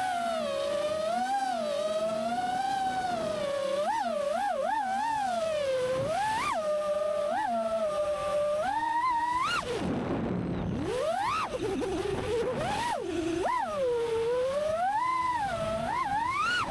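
Five-inch FPV quadcopter's brushless motors (T-motor Velox 2207 1950kv on 6S) whining, the pitch rising and falling with the throttle, with several sharp throttle punches. About ten seconds in the motor tone drops away to a rush of air as the throttle is cut, then sweeps back up on a punch-out.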